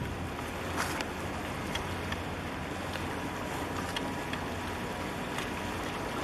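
Low, steady rumble of a passing container ship, mixed with wind on the microphone and water moving along the breakwater, with a few faint ticks.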